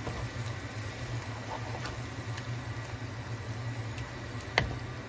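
Spatula stirring a thick tomato sauce with meat, peppers and rice in a nonstick frying pan over a steady low hum, with a few soft clicks and one sharp tap about four and a half seconds in.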